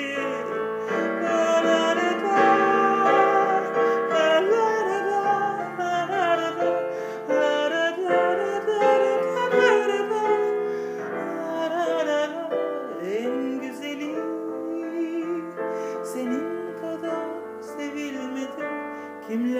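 Countertenor singing long, wavering held notes with vibrato over piano accompaniment.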